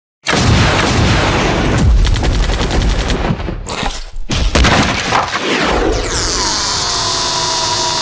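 Battle sound effects: dense rapid gunfire mixed with booms, then, about six seconds in, a high whine that drops in pitch and levels off into a steady tone.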